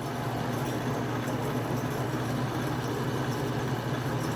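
Metal lathe running steadily with the drill press motor's rotor chucked and spinning, a low even hum with no pauses.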